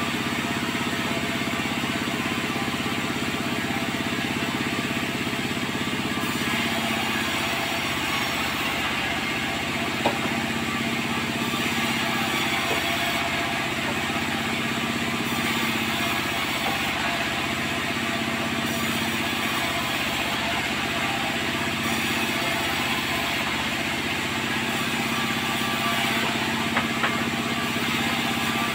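Sawmill machinery running steadily with a constant hum, and a few light knocks.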